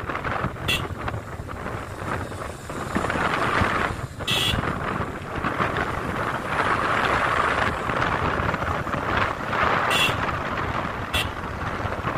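Wind rushing over the microphone of a moving motorcycle, with road and engine noise beneath, rising and falling in gusts. A few brief sharp sounds cut through, about a second in, near four seconds, and twice near the end.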